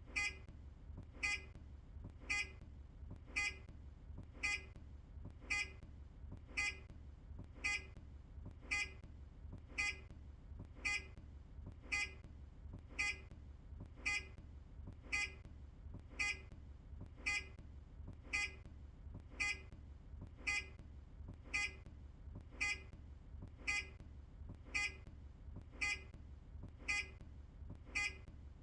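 Earlier Optare Solo bus's indicator warning beeper: a short high-pitched beep repeating evenly about once a second while the turn signal is on, over a low steady hum.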